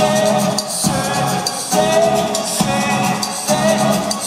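Live band music heard from within the concert audience: sung vocals holding long notes over a steady pulse that repeats a little less than once a second.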